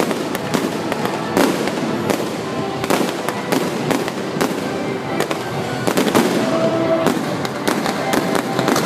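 Fireworks going off in quick succession: many sharp bangs and crackles, several a second, at irregular spacing.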